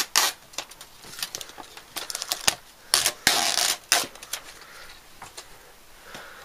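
Rigid clear plastic packaging being handled: a series of clicks and knocks as a GoPro camera in its mount is slid out of its clear plastic display case, with a longer scrape about three seconds in.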